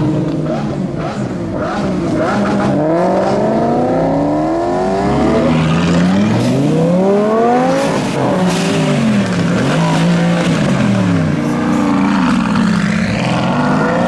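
Several supercar engines revving and accelerating away one after another. Their pitch climbs through the gears, drops back at each shift, and some notes fall away as the cars pull off.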